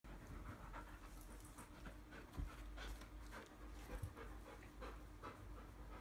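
Dog panting quietly in a steady rhythm, about two to three breaths a second, with a couple of soft low thumps as it moves against the man holding it.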